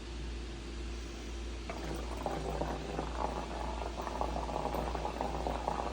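Water and cleaning solution sloshing and gurgling in the plastic clean-water tank of a portable spot cleaner as it is mixed. It is quieter at first and becomes a busy bubbling from about two seconds in.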